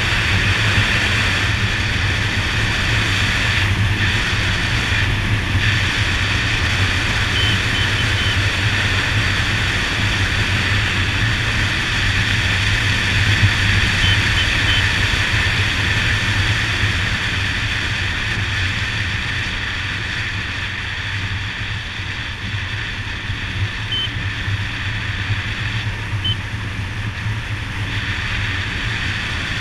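Steady wind rush over an action camera's microphone, with a Honda Dazzler's single-cylinder engine running evenly underneath as the motorcycle cruises along an open road.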